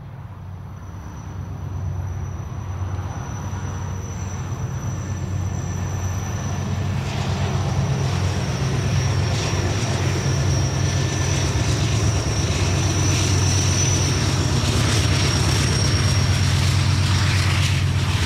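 GE B40-8 diesel-electric locomotive running under power as it comes out of a tunnel and approaches. Its low engine drone grows steadily louder, with a thin high steady whine above it.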